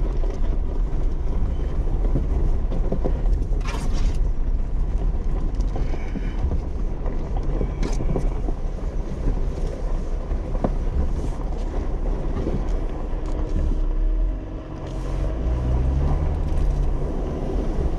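Jeep driving slowly over a gravel dirt track and into a soft sandy wash: a steady low rumble of engine and tyres, with a couple of sharp knocks from stones. Near the end the engine's hum comes through more clearly.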